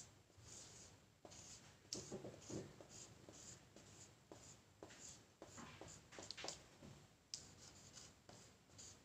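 Marker pen writing on a whiteboard: a faint run of short squeaky strokes, one letter after another.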